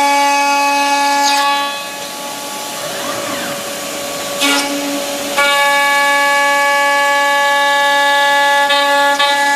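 CNC machine for aluminium profiles running with a loud, steady high-pitched whine rich in overtones. About 2 seconds in the whine gives way to a rougher, noisier sound for a few seconds, then returns about 5.5 seconds in.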